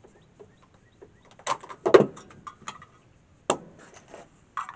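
Clacks and knocks of a CETME C 308 rifle being handled on a shooting-bench rest: a handful of sharp, separate hits, the loudest about two seconds in.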